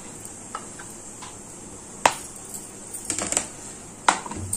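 Light kitchen handling sounds as chopped chillies are gathered into a bowl of onion and ginger: a sharp click about two seconds in, a short clatter of taps a second later, and another click near the end.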